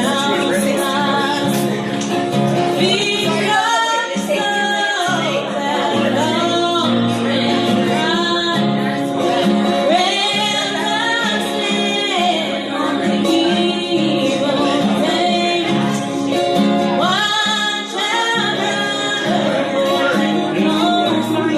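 A woman singing a slow country song to acoustic guitar accompaniment.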